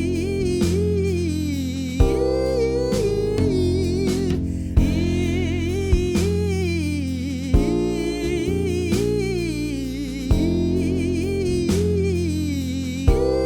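Soul vocal exercise: a voice sings a wavering, gliding melodic line of riffs and runs over a guitar and bass backing track. The chords change with a sharp accent about every two and a half to three seconds.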